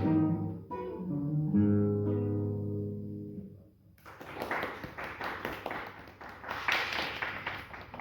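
Spanish guitar played fingerstyle: a phrase of plucked notes ends on a chord that rings out and fades away about three and a half seconds in. A few seconds of dense, noisy crackle and tapping follow.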